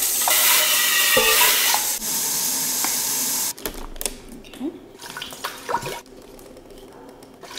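Kitchen faucet running water into a cooking pot, filling it. The water shuts off sharply about three and a half seconds in, followed by a couple of light knocks.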